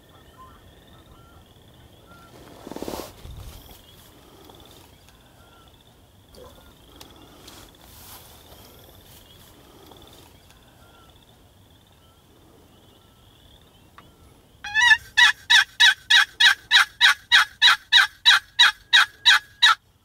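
Turkey yelps: a long, loud, evenly spaced run of about twenty notes, about four a second, starting near the end.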